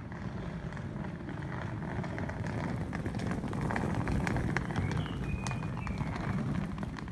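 A wheeled suitcase rolling over the pavement, its wheels rattling and clicking over the joints, loudest as it passes about four seconds in. A low steady rumble sits underneath.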